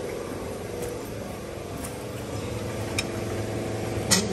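Engine running steadily, with a few light clicks and a sharper knock near the end.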